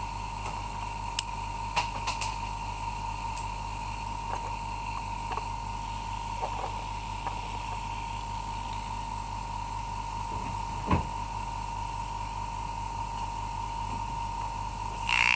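Steady machine-like hum with a constant whine, broken by a few light clicks and one knock, with a louder burst carrying a high tone right at the end.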